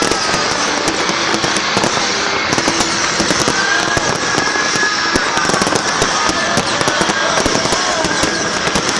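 Fireworks and firecrackers going off in a dense, continuous barrage of many small bangs and crackles.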